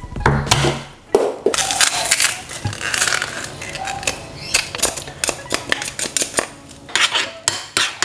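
Kitchen utensils clinking, knocking and scraping against a bowl and dishes while tzatziki is being made: a run of irregular sharp clicks and knocks with some scraping in between.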